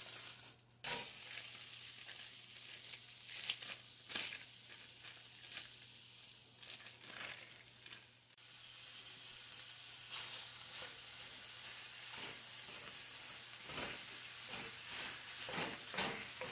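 Ground venison frying in hot rendered pork fat in a cast-iron skillet: a steady sizzle that starts suddenly about a second in as the meat goes into the pan. Near the end a wooden spatula scrapes and stirs the meat.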